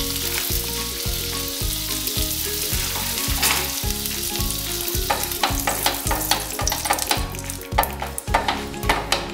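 Butter sizzling and crackling as it melts on a hot nonstick tawa, the crackles coming more often in the second half.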